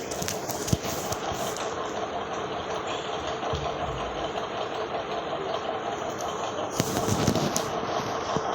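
Steady motor-like hum, with two brief spells of rustling and knocking near the start and about seven seconds in, from dough being kneaded by hand.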